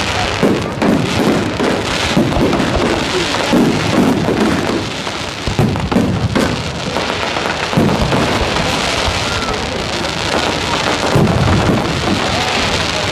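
Fireworks going off in a dense, continuous crackle with repeated low booms from bursting shells.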